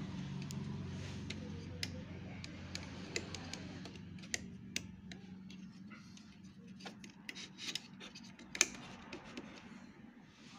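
Irregular light clicks and taps of fingers and plastic parts being handled around an inkjet printer's printhead carriage. Underneath is a low steady hum that fades out about two-thirds of the way through.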